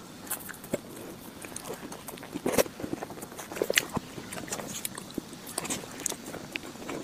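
Close-miked eating of a chocolate lava mousse cake: the soft cake scooped with a spoon and chewed, heard as many short, irregular clicks and smacks.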